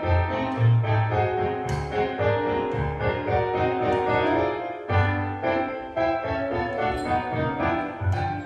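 Solo piano playing ballet-class accompaniment music, with bass notes sounding at regular intervals under chords.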